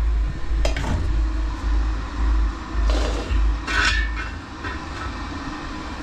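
Aluminium cooking pot clanking against the metal pan support of a gas-cylinder burner: three knocks and scrapes, the last with a short metallic ring. A low rumble of camera handling underlies the first two-thirds.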